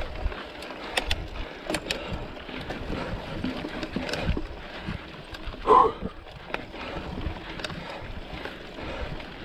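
Mountain bike being ridden on a trail: a steady rush of tyre and wind noise with scattered sharp knocks and rattles from the bike, and one brief louder sound a little past the middle.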